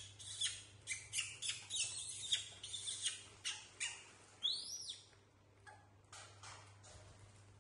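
Crinkling of a plastic snack bag being handled, in a quick run of short crackles that thin out after about five seconds. A single high squeal that rises and falls, from a baby macaque, comes about four and a half seconds in.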